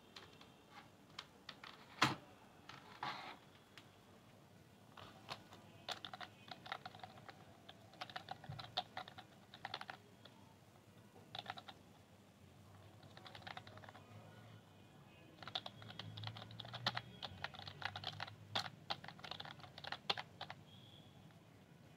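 Typing on a computer keyboard: keystrokes in short irregular bursts with pauses between them, one sharper key strike about two seconds in.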